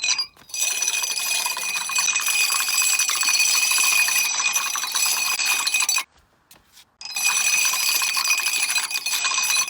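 A long chain of dominoes toppling: a fast, dense clatter of tile-on-tile clicks with a steady high ringing over it. It cuts out abruptly for about a second partway through, then starts again.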